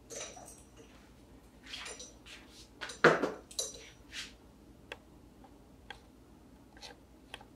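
Clattering and clinking of small hard household objects in a small room: a few bursts with the loudest about three seconds in, followed by scattered light clicks.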